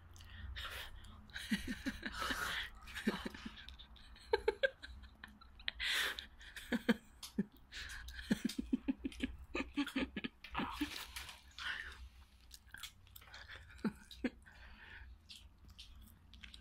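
Close-up chewing and crunching of food, with scattered short clicks and crackles and a few brief soft voice sounds.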